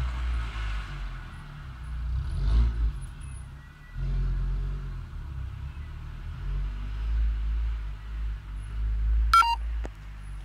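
Low, uneven rumble of a nearby motor vehicle, and about nine seconds in a single short cat meow falling in pitch.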